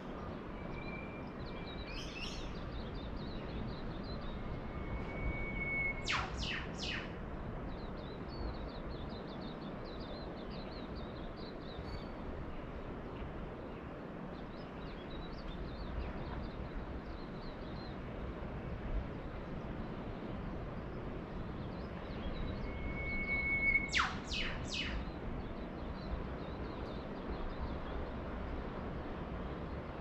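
Birds calling over a steady wash of surf. Twice, a long held whistle is followed by a quick run of three sharp notes, the loudest sounds, with faint high chirping scattered between.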